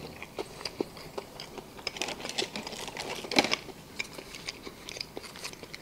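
Close-up clicks, ticks and crinkles of a small plastic sauce container being handled and opened, with a louder crackle about three and a half seconds in, over quiet chewing.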